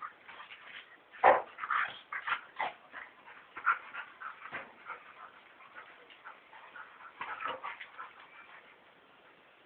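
Two dogs play-wrestling: a rapid string of short, sudden dog noises and scuffles, the loudest about a second in, thinning out near the end.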